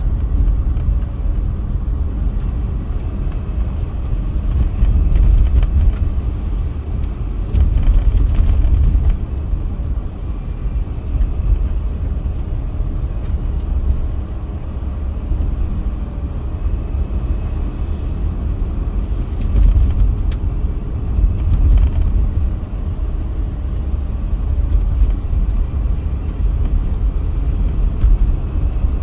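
Car driving along: a steady low rumble of road and engine noise with a rushing haze over it, and two brief swells of louder hiss partway through.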